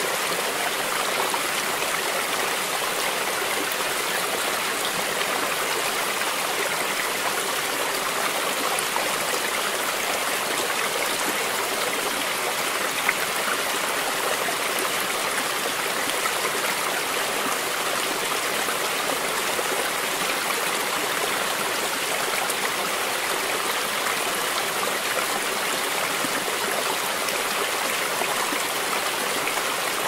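Rocky mountain stream flowing steadily over small cascades, an even rushing hiss of falling water. One brief click stands out about thirteen seconds in.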